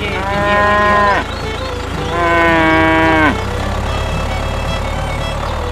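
Cow mooing twice, two long calls that each drop in pitch at the end, over a steady low hum.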